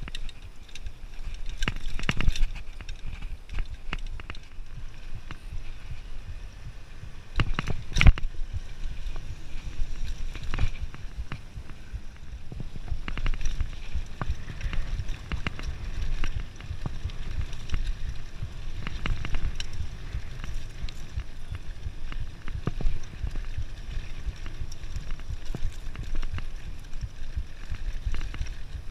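Mountain bike rolling over dirt singletrack: tyres on dirt, with the bike rattling and clicking over bumps and a steady low rumble underneath. Two sharp knocks stand out, about two and eight seconds in.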